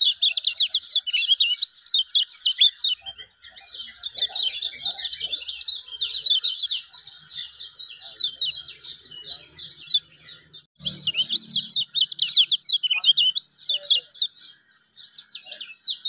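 Kecial kuning singing a fast "ngejos" song: long runs of rapid, high, sweeping chirps, broken by a few short pauses.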